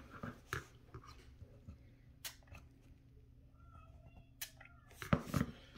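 Light handling sounds of a plastic miniature and a small plastic bottle of Insta-Set glue accelerator being picked up and worked with: a few short, sharp clicks spread out, then a louder, lower knock-like sound near the end.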